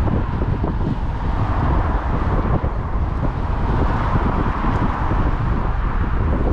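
Strong wind buffeting the microphone: a steady, gusty low rumble with a hiss of wind noise above it.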